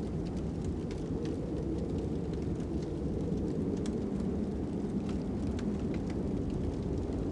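Steady low wind noise with a fire crackling over it in scattered sharp pops.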